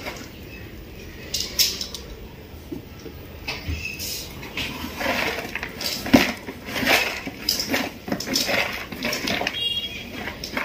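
Hands pressing and crumbling lumpy soil around a small plant in a flower pot: irregular scratchy scrapes and light knocks, busier in the second half.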